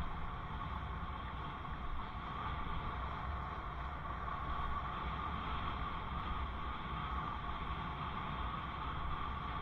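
Steady wind rumble on a helmet camera's microphone while cycling, with a constant rushing noise and no sudden events.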